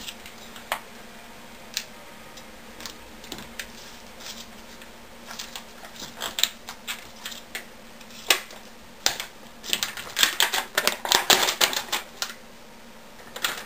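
Lithium polymer RC battery pack being taken apart by hand: irregular clicks and crackles of its plastic wrapping and parts. They come sparsely at first and thicker from about nine seconds in.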